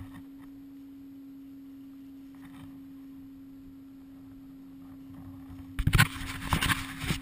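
Snowmobile running at a steady pace, heard as a muffled, steady hum. About six seconds in, loud irregular knocks and crackles break in.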